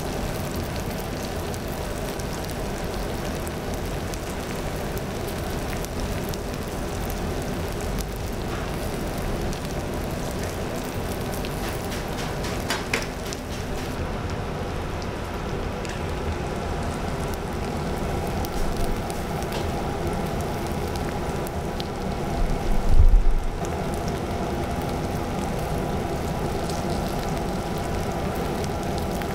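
Pork belly and aged kimchi sizzling on a hot tabletop griddle: a steady, even hiss. A dull thump stands out about three-quarters of the way through.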